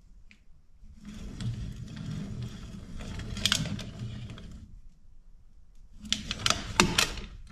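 Oil filter cutter, a pipe-cutter-style tool with rollers and a cutting wheel, being turned around a steel spin-on oil filter can: a steady scraping for a few seconds with a tick now and then, then a short pause and a quick run of sharp clicks and clacks near the end as the blade cuts through the can.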